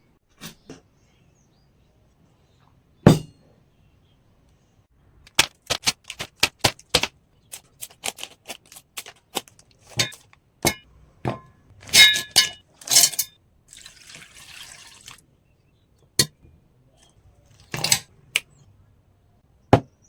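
Kitchen utensils and glassware being handled, with a series of sharp taps, knocks and clinks. One louder knock comes about three seconds in, and some of the clinks ring briefly. A short soft hiss follows in the middle.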